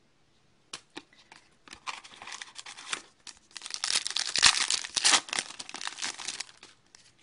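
A trading card pack's foil wrapper being torn open and crinkled by hand. Scattered crackles begin less than a second in, build to dense crinkling about halfway through, and fade near the end.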